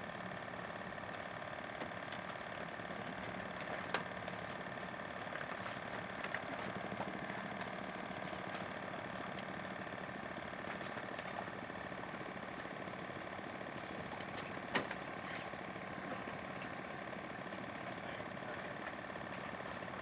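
A motor engine running steadily at idle. A few sharp clicks come through about four and fifteen seconds in, followed by a brief hiss.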